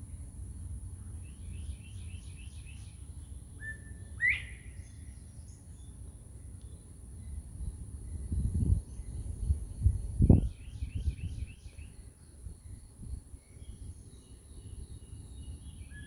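Wild birds singing: two quick runs of chirps and a sharp rising whistle about four seconds in. Wind rumbles on the microphone throughout, gusting hardest from about eight to eleven seconds in.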